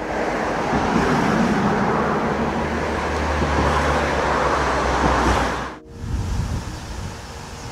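Road traffic noise with a low rumble of passing vehicles, loudest in the middle; it cuts off abruptly about six seconds in, leaving a quieter background.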